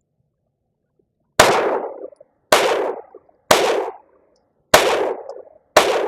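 Glock G44 .22 LR pistol firing five shots of CCI Stinger ammunition, roughly one a second, each crack trailing off into a short echo. The pistol cycles every round without a stoppage.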